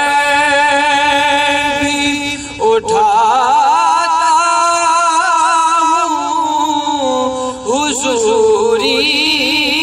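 A male voice singing a naat, an Urdu devotional poem, solo, drawing out long wavering ornamented notes, with a brief break about three seconds in and a new phrase starting near the end.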